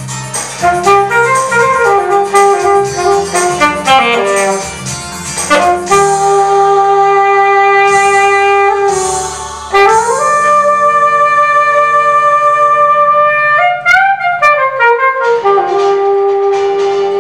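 Alto saxophone playing a solo over a low accompaniment: quick runs up and down in the first few seconds, then two long held notes, a bend in pitch about fourteen seconds in, and another held note near the end.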